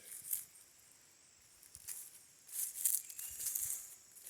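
Footsteps swishing and crunching through dry grass and weeds: a brief rustle at the start, another about two seconds in, and a longer run of steps near the end.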